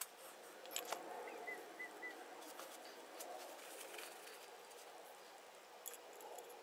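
Quiet workbench handling: a couple of small clicks in the first second as small steel parts and a bottle are set down, then a shop towel rubbing over the shaper ram. A few faint short chirps about a second and a half in.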